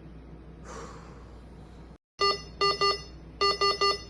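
Electronic beeper sounding short beeps of one pitch in quick groups of two and three, starting about two seconds in after a sudden cut; before that, a quieter stretch with a brief hiss.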